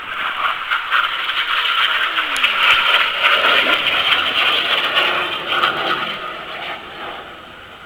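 Jet noise from a BAE Hawk T1 display jet passing by: a rushing roar that swells over about three seconds, holds, then fades away near the end.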